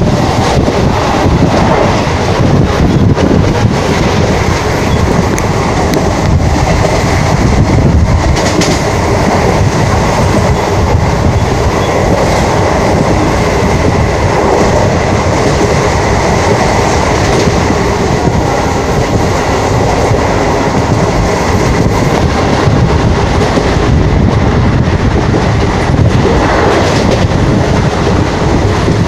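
Diesel-hauled express train, a WDM3D locomotive at its head, running flat out at about 110 km/h: a loud, unbroken rumble and clatter of wheels on rail.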